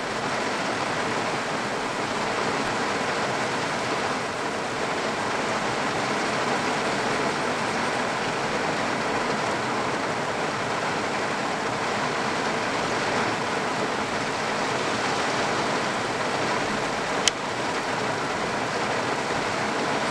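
Heavy rain pouring down, a steady even hiss. One sharp click about three seconds before the end.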